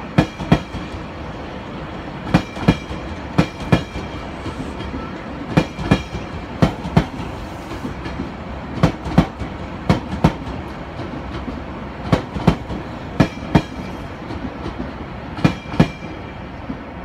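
JR Shikoku 8000 series electric train pulling slowly into a station, its wheels clicking over the rail joints in close pairs, one pair per bogie, over a steady rolling rumble. The clicks stop near the end as the last car passes.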